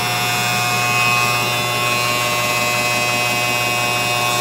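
Caterpillar 3116 turbocharged inline-six diesel of an M35A3 truck idling steadily just after a cold start, heard from inside the cab, with a steady high whine over the low engine note.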